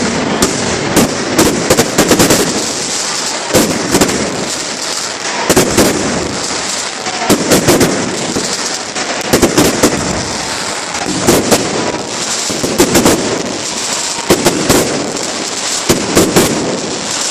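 Fireworks display going off: clusters of sharp cracks and bangs over a continuous crackle, with a fresh volley about every two seconds.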